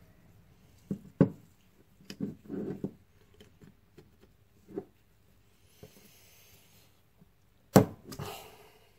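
Hex key and metal brake caliper knocking and rubbing on a wooden workbench as the caliper's bolts are worked loose: scattered knocks, with a brief hiss about six seconds in and the loudest knock shortly before the end.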